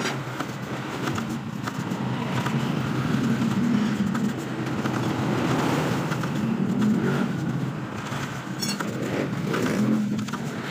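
A motor vehicle engine running, its rumble swelling and easing several times.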